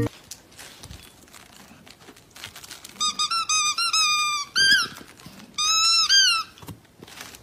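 A dog chewing a plush squeaky toy, squeezing out short, high squeaks: a run of them about three seconds in and another near six seconds.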